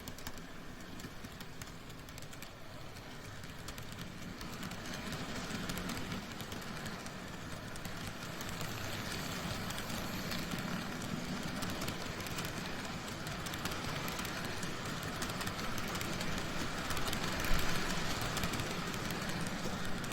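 N gauge model train of E231-0 series Sōbu local line cars running along the track, a steady mix of motor hum and wheel and rail noise with fine clicking. It grows louder after about four seconds, with one sharp click near the end.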